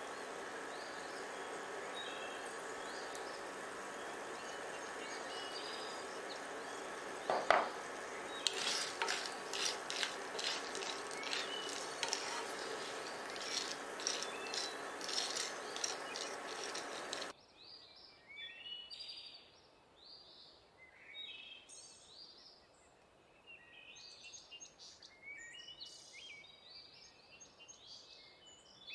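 Cooking sounds: utensils clicking against a pan or dishes over a steady hum, with one sharp knock about seven seconds in. After a sudden cut about two-thirds through it is quieter, with short high squeaky chirps.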